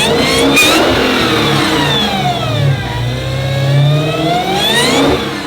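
Dodge Challenger Hellcat Redeye's supercharged 6.2-litre HEMI V8, breathing through a Legmaker cold air intake, revving loudly. It rises quickly to a peak about half a second in, falls away, then climbs more slowly to a second peak near the end.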